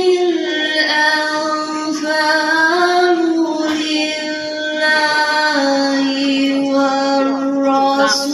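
A woman's voice reciting the Quran in the melodic tarannum style, drawing out long held notes with slow ornamented glides between pitches.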